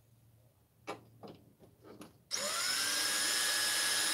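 Cordless drill-driver driving a screw into a TV's back cover: a few light taps as the screw is set, then about two seconds in the motor spins up with a short rising whine and runs steadily.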